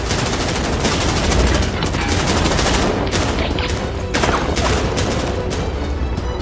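Automatic rifle fire: many shots in quick, overlapping bursts, as in a film shootout.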